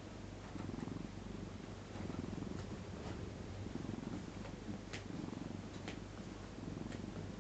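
Sleeping cat snoring, each breath a soft rasp that swells and fades in an even rhythm, a little under one a second.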